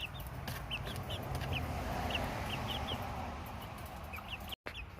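Small caged poultry peeping: many short, high chirps scattered irregularly over a steady low background rumble.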